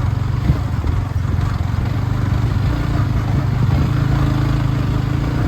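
Motorcycle engine running steadily, a low continuous hum with no pauses.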